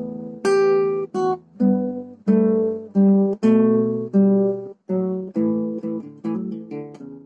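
Acoustic guitar playing strummed chords, about two a second, each left to ring, with no singing.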